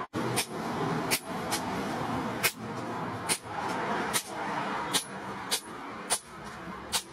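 Hand hammer blows on hot brake-disc steel at the anvil, partly driving a chisel into the glowing blade: about ten sharp metallic strikes, unevenly spaced less than a second apart. A steady background rush runs under them.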